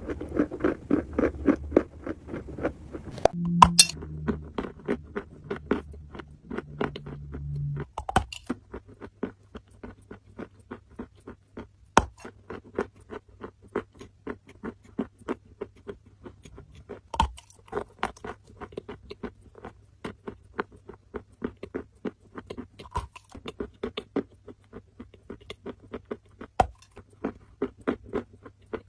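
Dry orange clay being chewed close to the microphone: a steady run of crisp crunches, about three a second, with a few sharper, louder cracks.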